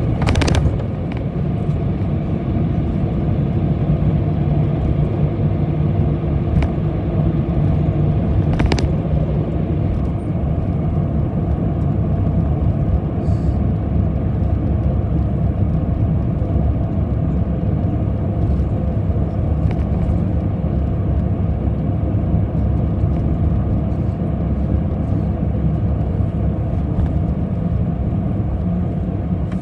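Bus engine and road rumble heard from inside the moving bus: a steady low drone, with two sharp rattling knocks, one just after the start and one about nine seconds in.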